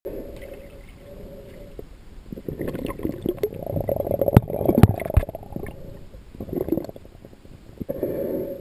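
Muffled underwater gurgling and sloshing heard through a submerged camera's housing, swelling in the middle, with a few sharp clicks a little past halfway.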